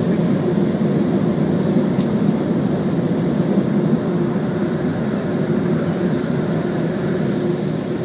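Car running, heard from inside the cabin: a steady low rumble with a few faint ticks.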